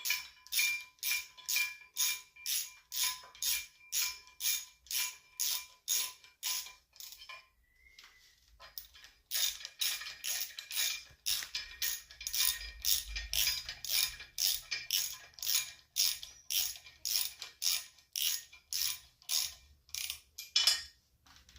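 Hand ratchet wrench clicking in even strokes, about two to three a second, as it runs bolts in. The strokes stop about seven seconds in and start again a second or so later.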